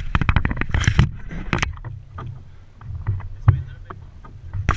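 Water slapping and knocking against a small boat's hull, with sharp knocks and splashy bursts over a low steady rumble. The knocks come thickest in the first second and a half and again near the end.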